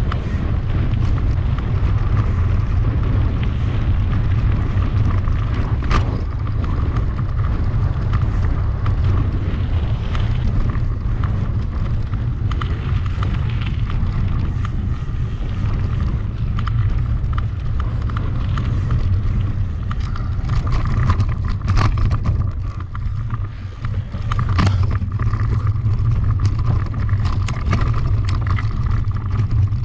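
Mountain bike being ridden over a rough trail: steady wind rumble on the microphone and tyre noise, with scattered knocks and rattles from the bike over bumps, thicker a few times.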